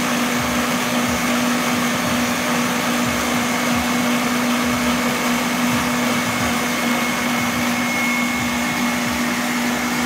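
Stand mixer running steadily on high speed, its whisk beating egg yolks in a stainless-steel bowl, with a constant low motor hum. Hot sugar syrup is being poured slowly into the whisking yolks.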